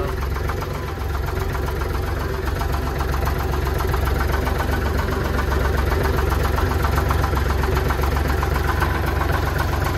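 Zetor 4718 tractor's diesel engine running steadily, still warming up after a cold winter start, with a little more power from a few seconds in.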